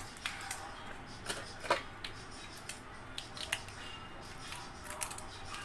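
Scattered light clicks and taps of kitchen items being handled, the loudest about a second and a half in.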